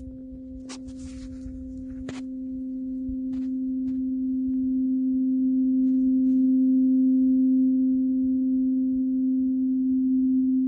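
Steel tuning fork ringing: one steady, pure, low tone with a fainter overtone an octave above, swelling slowly over the first several seconds, with a few light handling clicks and a rustle near the start.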